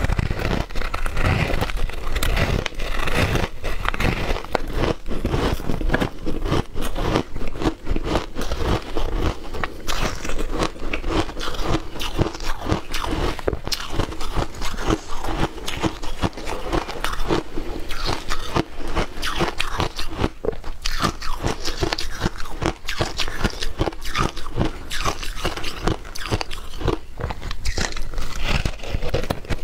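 A block of ice dusted with matcha powder being bitten into and chewed: a dense, continuous run of sharp crunches and crackles.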